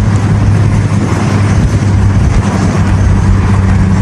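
Mitsubishi Eclipse with an aftermarket cat-back exhaust droning steadily under way, over heavy road and wind noise. About two and a half seconds in, the low drone gives way to a higher one.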